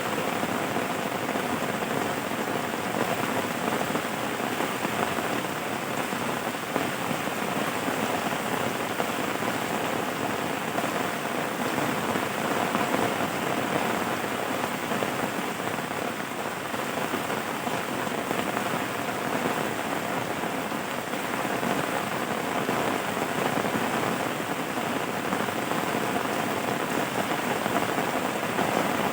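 Steady rain falling and pattering on surfaces, an even continuous hiss.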